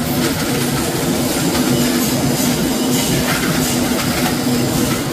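LDPE/PP film scrap washing line running: a loud, steady machinery din with a constant hum from its motors, and faint scattered ticking on top.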